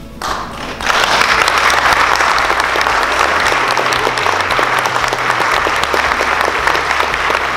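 Guests applauding, swelling sharply within the first second and then holding steady.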